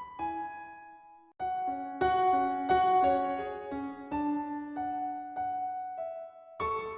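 Background piano music: gentle single notes and chords, with a brief break about a second and a half in.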